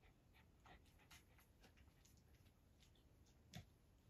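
Near silence: faint scattered ticks and rustles of young puppies moving about on blankets, with one sharper click about three and a half seconds in.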